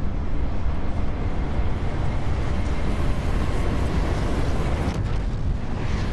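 Steady low rumble with a layer of hiss, a sound effect laid under a space animation, growing brighter and more hissy near the end.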